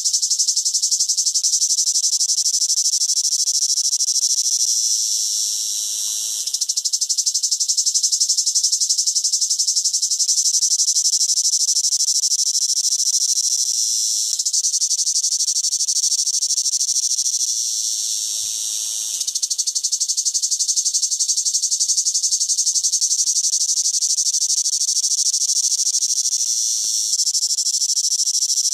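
A cicada singing: a loud, continuous shrill buzz. The buzz fades briefly and picks up again three times, around 6, 19 and 27 seconds in.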